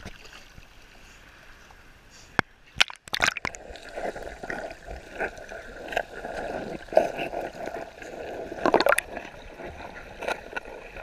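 Water lapping at a waterproofed GoPro at the surface, then a few sharp splashes and knocks just before three seconds in as it dips under. After that comes muffled underwater sloshing and gurgling, with dogs paddling close by.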